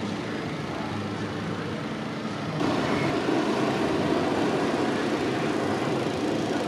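Hot-air balloon's propane burner firing, a steady roar that comes in suddenly about two and a half seconds in, over a steady engine-like drone.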